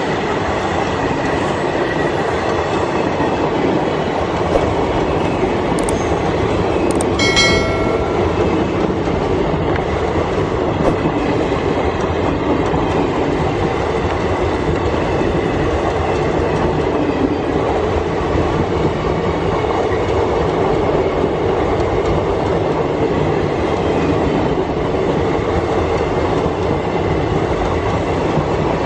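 Passenger coaches of an Indian Railways express rolling past close by at speed, a steady rumble with the clatter of wheels on the track. A short high-pitched tone sounds for about a second roughly seven seconds in.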